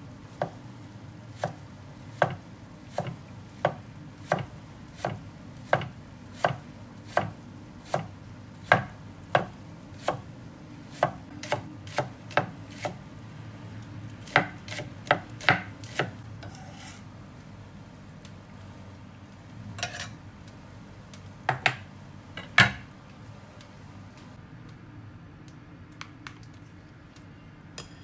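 Chef's knife slicing spring onion on a wooden cutting board: steady knocks of the blade on the board, a little more than one a second, for about sixteen seconds, then a few scattered knocks, over a low steady hum.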